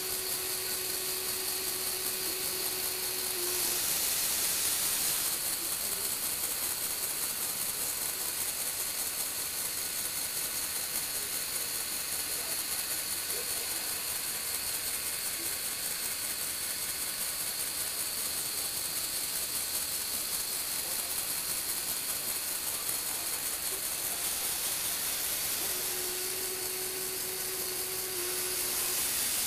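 Lego Technic electric motors and gear trains driving a tracked chassis, a steady mechanical whirr with a gritty, ratchet-like hiss. A steady low hum joins for the first few seconds and again near the end.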